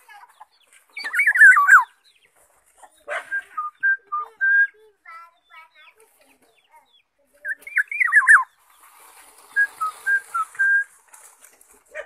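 Black-naped oriole whistling. There are two bursts of quick up-and-down gliding notes, about a second in and again around eight seconds in, each followed by a string of short, level fluty notes.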